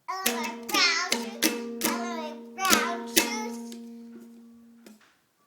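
Strummed guitar chords with a young child singing along. The last chord rings out and fades, then is cut off sharply just before the end.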